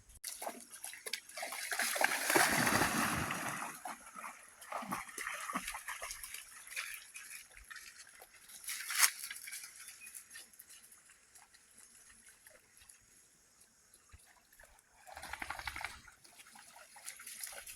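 Water splashing and sloshing at a swimming hole, loudest a couple of seconds in, with smaller splashes after, a sharp click about nine seconds in and another splash near the end.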